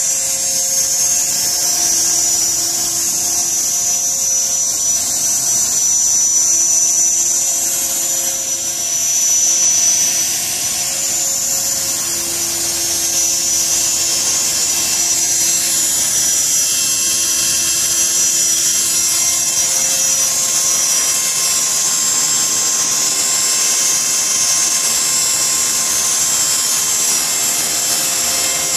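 CopterX 450 electric RC helicopter hovering and flying low: a steady high-pitched whine from its electric motor and spinning rotor.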